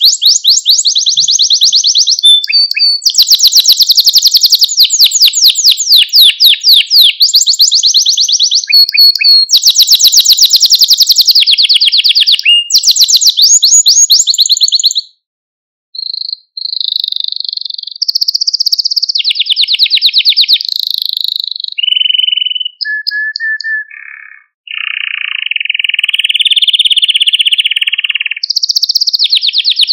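Male canary singing: a long song of very fast trills and rolls in changing phrases. It breaks off briefly about halfway, then runs on with single whistled notes and a lower rolling passage near the end.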